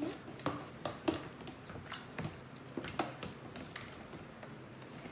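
A utensil stirring a glue-and-baking-soda slime mixture in a large bowl: irregular light clinks, taps and scrapes against the bowl.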